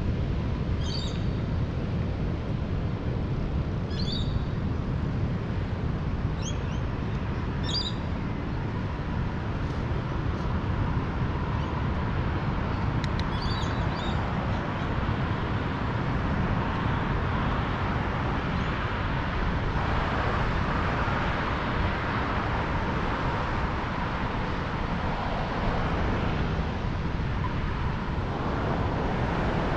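Steady wind rumble on the microphone with the rolling noise of a bike ride. A few short bird chirps sound in the first half. A rushing hiss swells through the second half.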